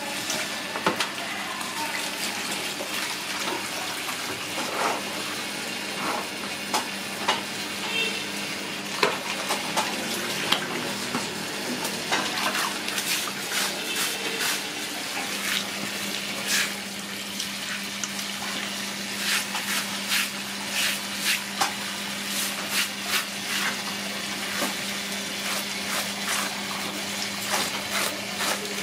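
Water running steadily from a garden hose onto a wet concrete floor, with many short wet slaps and squelches as hands rub and scrub a skinned snake carcass under the stream.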